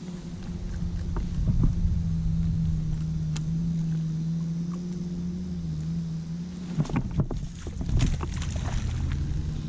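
Steady low hum of a boat motor at one even pitch. It breaks off about seven seconds in amid a few clicks and knocks, then comes back at a shifting pitch.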